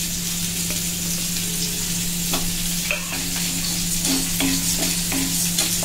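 Chana dal roasting in a hot metal kadhai, stirred and scraped with a wooden spatula: irregular clicks and scrapes from about two seconds in, over a steady hiss and a low hum.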